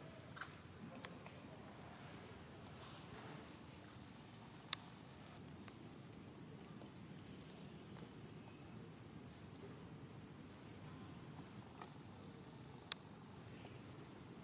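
Steady high-pitched insect chorus, two unbroken shrill tones, with two sharp clicks, about five seconds in and near the end.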